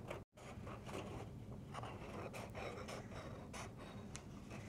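Sharp scissors cutting through a sheet of frosted Shrinky Dink shrink plastic: a run of faint, irregular snips, with the sound dropping out for a moment just after the start.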